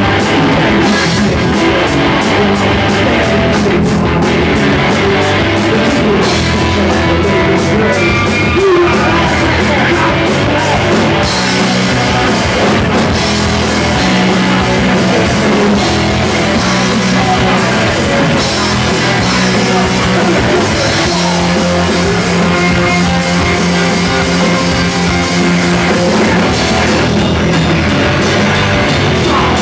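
Live rock band playing loudly: electric guitar over a drum kit, with a steady cymbal beat.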